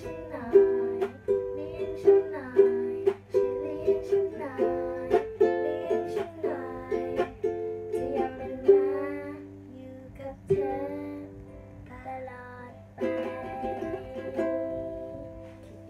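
A young girl singing with a ukulele strummed along. The music drops quieter a little past halfway, then the strumming picks up again near the end.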